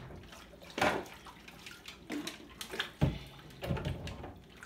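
Kitchen tap running into a sink while plastic juicer parts are rinsed under it, with several knocks as the parts are handled, the loudest about a second in and about three seconds in.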